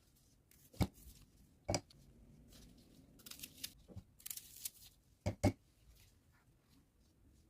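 Ingredients and utensils being handled for a recipe: a few sharp knocks, with a close pair of the loudest ones past the middle, and bursts of rustling in between.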